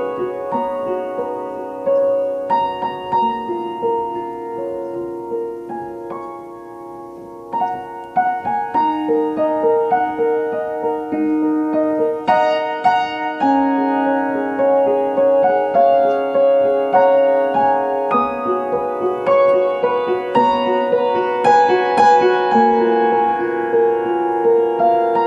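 Piano music: struck notes and chords that ring on, quieter about six to seven seconds in, then fuller again.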